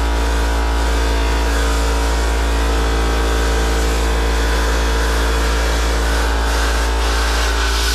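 Air compressor running steadily, a constant motor hum with a hiss of compressed air above it, feeding air into gum rubber to expand it onto a bowling ball lift rod; the hiss gets a little brighter near the end.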